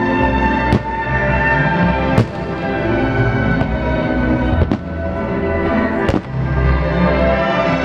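Aerial firework shells bursting in four sharp bangs, a second or two apart, over continuous orchestral music.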